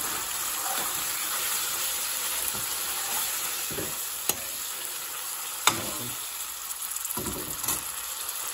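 Curry sizzling in a metal pan while a metal spoon stirs it, scraping the pan, with two sharp clicks of spoon against pan about four and six seconds in. The gravy has cooked down until its oil has risen to the top, so the curry is frying in that oil.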